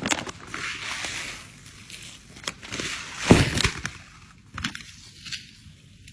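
A run of sharp clicks and knocks, with a rustling hiss in the first couple of seconds and one louder knock about three seconds in.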